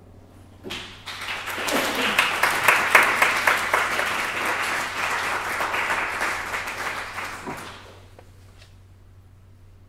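Audience applauding at the end of a talk: clapping starts about a second in, builds, and fades out after about seven seconds.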